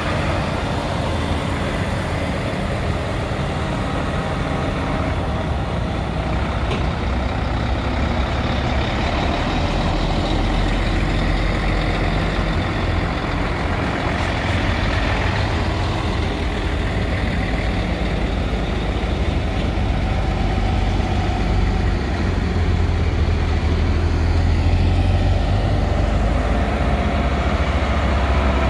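Heavy diesel lorry engine running steadily, its deep rumble growing louder through the second half.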